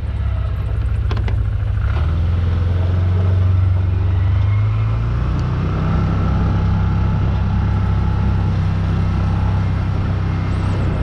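Off-road vehicle's engine running with a steady low drone as it drives along a gravel dirt road. The pitch of the drone shifts slightly about two seconds in and again around five seconds in as the speed changes.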